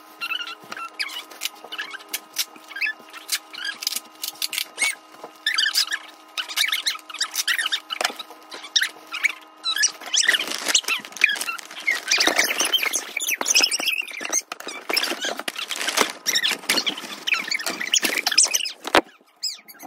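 Crinkling, rustling and tapping of paper and plastic materials being handled close to the microphone, busier and louder from about halfway through.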